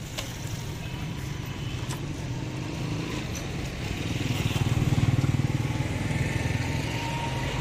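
A motor vehicle engine running close by in street traffic, swelling louder about halfway through and then easing off a little.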